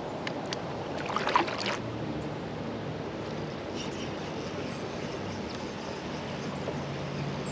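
Water sloshing around a kayak on a creek, a steady noisy wash, with a short louder burst of clatter and splashing about a second in.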